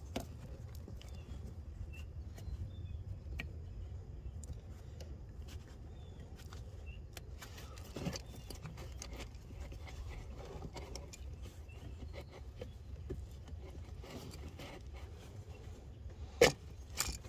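Faint clicks and rustling as an ignition coil pack is worked in under a wiring harness, with a steady low rumble behind. A sharper click comes near the end.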